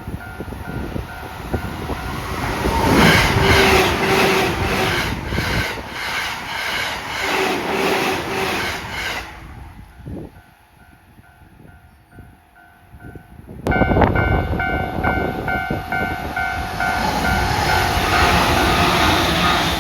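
JR Tokaido Line electric commuter trains passing a level crossing at over 100 km/h, their wheels clattering rapidly over the rail joints while the crossing's warning bell rings in a steady repeating pattern. The first train's clatter fades after about nine seconds, leaving the bell. About two-thirds of the way through, the sound switches abruptly to a second train rushing past with the bell ringing again.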